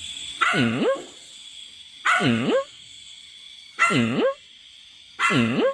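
A dog vocalizing in four short, near-identical calls about a second and a half apart. Each call dips in pitch and swings back up.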